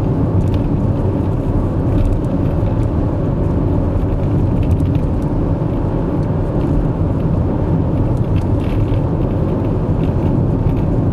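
Car driving, heard from inside the cabin: a steady low rumble of engine and road noise, with a few faint light ticks.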